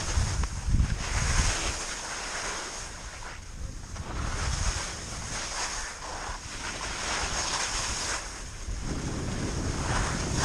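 Wind rushing over a GoPro's microphone during a downhill ski run, with the hiss of skis sliding over snow swelling and fading in surges every couple of seconds.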